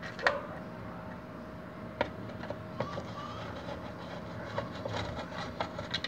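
Screwdriver working the small screws out of the plastic control panel of a washing machine: scattered light clicks and scrapes, over a faint steady hum.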